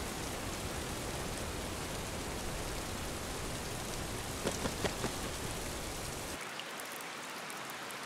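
Steady rainfall on jungle foliage and water, an even hiss. About six and a half seconds in, the low rumble drops away and the rain thins slightly.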